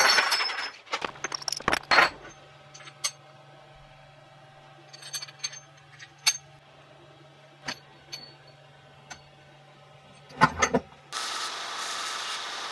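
Steel washers dropped onto a wooden benchtop, clattering and clinking, then small metal clinks as a bolt and washers are handled. About 11 seconds in, a belt sander starts a steady grinding noise as it sands the zinc plating off the steel bolt.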